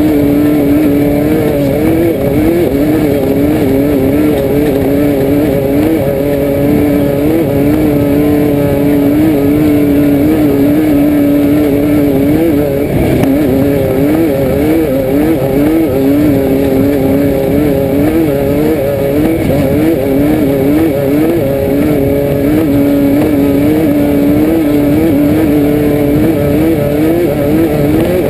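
A Class 5-1600 Baja Bug's air-cooled Volkswagen flat-four runs hard under load, heard from inside the car. Its pitch rises and dips every second or two as the throttle comes on and off, over a constant low rumble.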